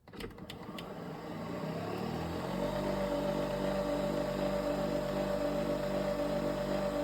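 Nespresso Vertuo Next coffee machine starting its cleaning cycle: a few light clicks, then the machine's motor and pump come on, building over a couple of seconds into a steady whirring hum with a high tone.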